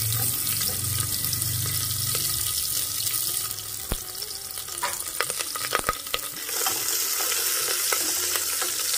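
Sliced onions and green chillies sizzling in hot oil in an aluminium pressure cooker, a dense steady hiss with a few sharp clicks about four to six seconds in.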